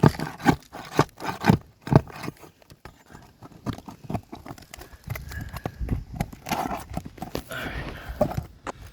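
Roof snake knocking and scraping on asphalt shingles as it is worked under them to pull the nails: sharp knocks about twice a second for the first two seconds, then quieter scraping and handling.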